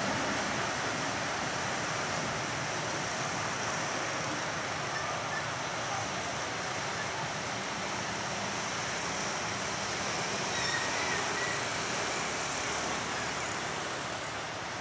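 Passenger train coaches rolling away along the track: a steady rushing rumble of wheels on rails that eases slightly toward the end.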